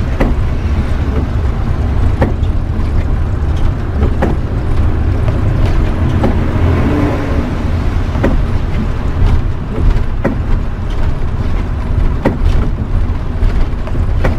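Interior drive noise of a converted-bus motorhome on a rain-wet road: a steady deep engine rumble with tyre and road hiss. A sharp click comes about every two seconds, from the windshield wipers.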